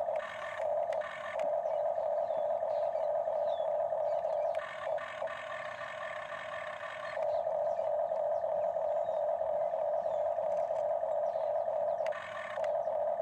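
Electric motors of a Huina remote-control toy excavator whining steadily as the boom lifts and the bucket curls. Twice the steady whine gives way to a rougher, buzzier run for a few seconds, as a different function engages.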